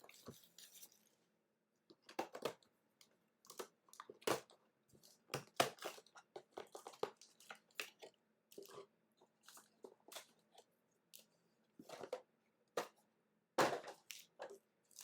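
Plastic wrapping of a trading-card box and its packs being torn and crinkled open by hand: irregular crackles and rips, no steady rhythm.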